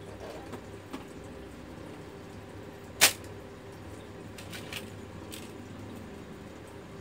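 Plastic clicks from parts of a Brother GX-6750 electric typewriter being handled while its ribbon or correction tape is fitted: one sharp loud click about three seconds in and a few lighter ticks around it, over a steady low hum.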